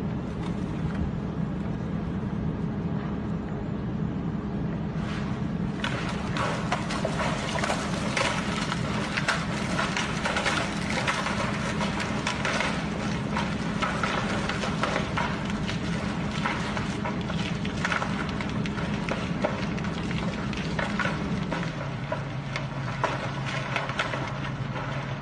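A large boulder crashing down a mountainside through trees, with a dense run of cracking and snapping from about five seconds in that thins out near the end. Under it runs a steady low hum that drops in pitch late on.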